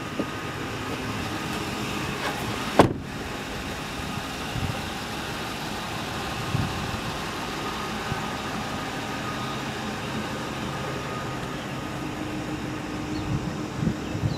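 Ford F-150's 4.6 L Triton V8 idling steadily, with one sharp knock about three seconds in, likely the truck's door shutting.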